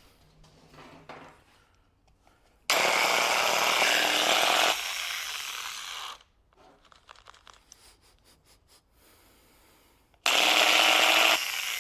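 Makita angle grinder switched on twice in short bursts, each run lasting a second or two before it winds down. It is running after reassembly with the bearing left off the end of the armature, and it does not sound happy.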